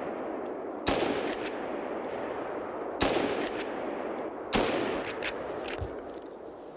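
Three hunting rifle shots during a driven boar hunt, the first about a second in, then about two seconds and a second and a half apart. Each one trails off in a long rolling echo.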